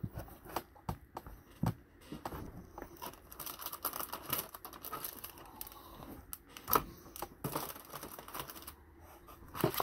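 Handling of a trading card in a plastic sleeve and a clear hard plastic card holder: crinkling and rustling of plastic with several sharp clicks, the loudest about two-thirds of the way through.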